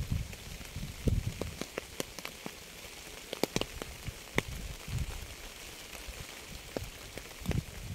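Rain falling steadily with a high hiss, and many scattered sharp ticks of single drops striking a surface. Low rumbles swell and fade now and then.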